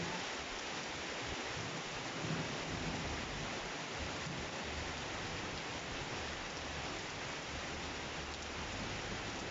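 Steady heavy rain falling in a thunderstorm, an even hiss with some low rumble underneath.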